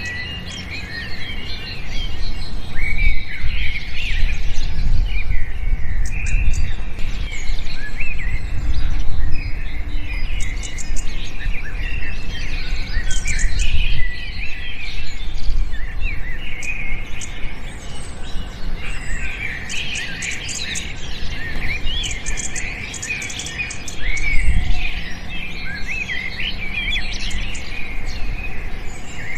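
Many small birds chirping and twittering at once, a dense chorus of short overlapping calls and trills that comes and goes in loudness, with a low rumble underneath.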